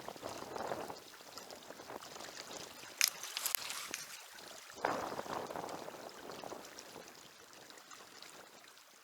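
Water splashing and running in uneven surges, with a short sharp splash about three seconds in and another sudden surge near five seconds that dies away.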